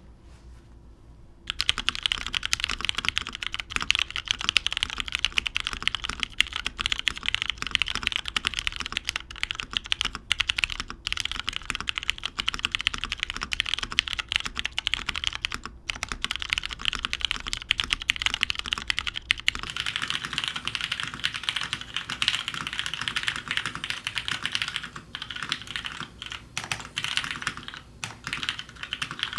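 Steady, fast typing on a custom mechanical keyboard: lubed Cherry MX Brown tactile switches in a top-mounted aluminium-plate Merisi Works 500c, with PBT keycaps, giving a dense run of keystroke clicks that begins about a second and a half in. About two-thirds of the way through the sound changes character as the recording switches from the tripod-mounted studio mic to the camera's mic.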